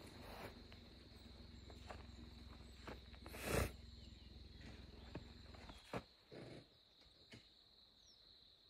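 Faint steady high-pitched insect trill, with a low rumble underneath that drops away about six seconds in, and one short loud noise about three and a half seconds in.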